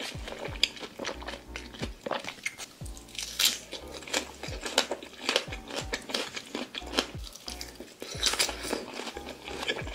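Close-miked eating of fresh fruit: many short, sharp bites and chewing sounds as pieces of melon and other fruit are taken from a skewer. Soft lo-fi background music with a low beat plays underneath.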